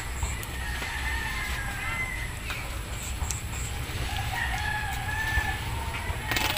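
A rooster crowing twice, each crow a long drawn-out call lasting well over a second, over a steady low rumble.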